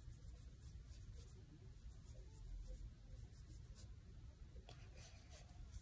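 Near silence, with faint soft rubbing strokes of a cotton round wiped back and forth along the hairline and wig-cap edge.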